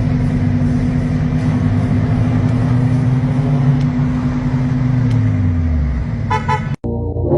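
Modified Toyota Supra Mk4's 2JZ-GTE twin-turbo inline-six running loud through a straight-piped exhaust, a steady drone whose lower note falls as the revs drop. Near the end comes a brief rapid fluttering burst, typical of turbo compressor flutter ("stututu") when the throttle shuts, before the sound cuts off abruptly.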